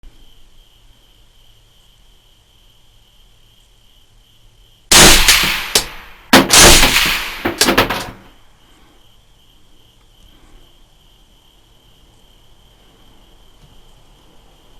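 Two rifle shots about a second and a half apart, each very loud and rolling away over about a second. Insects chirp steadily and faintly throughout.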